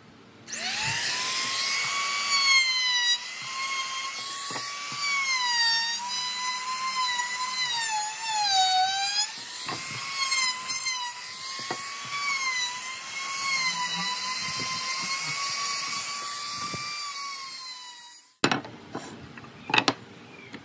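Compact trim router running at high speed and cutting along a wooden board, a high whine that dips in pitch under load around the middle. It starts about half a second in and stops near the end, followed by a few sharp knocks.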